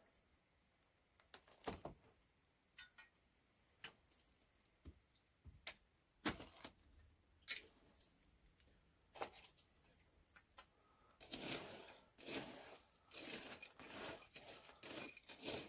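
Metal fire tongs poking and raking glowing wood embers in a stone hearth: faint scattered clinks and knocks, then a denser run of scraping and crunching of coals in the last few seconds.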